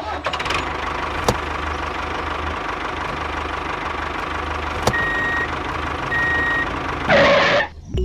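Tractor engine running steadily, with two short high beeps about a second apart in the middle. A brief louder rush of noise comes near the end.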